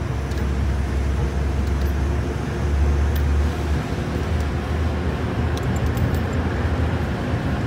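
Salt-mine shaft cage descending: a steady low rumble of the ride down the shaft, swelling briefly about three seconds in, with a few faint clicks and rattles over it.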